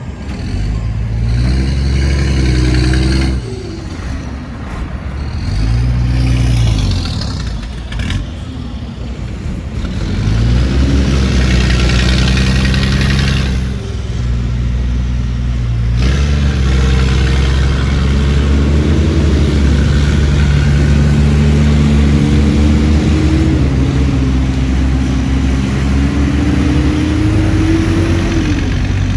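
Heavy diesel engines of earthmoving machines running under load and revving, their pitch rising and falling several times, then running loud and fairly steady through the second half.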